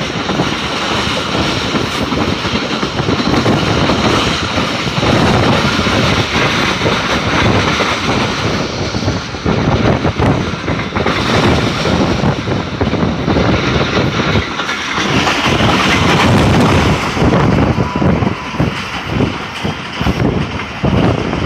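Millat Express passenger train running at speed, heard from a coach window: wheels on the rails with a dense, irregular clatter over the track.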